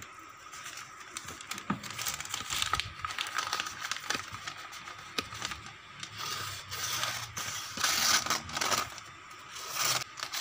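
Thin sheet of paper crinkling and tearing as it is handled and slit with a very sharp, needle-thin knife ground from an old saw blade. It comes in irregular bursts, loudest about eight seconds in and again near the end.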